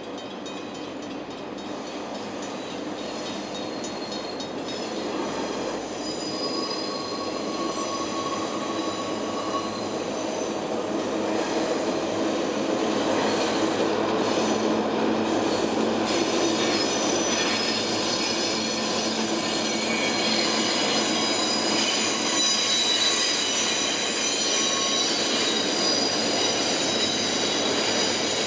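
Three EMD diesel-electric locomotives (two DC class and a DFB) hauling a freight train, their engines running as they come closer and pass, growing louder over the first dozen seconds. High, steady wheel squeal from the train taking the curved track rides over the engine noise.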